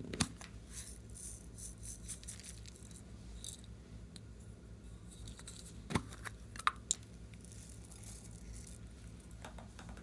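Hands working clear slime: irregular sticky crackles and small pops as it is stretched and pressed, with a few sharper pops near the start and around six to seven seconds in.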